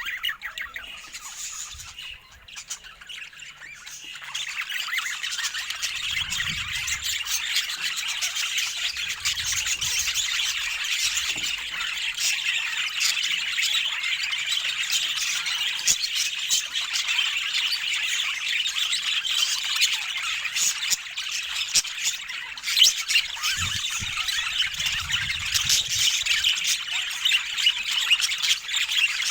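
Budgerigars chattering and warbling, a dense, unbroken stream of quick chirps and squawks that grows louder about four seconds in and then holds steady.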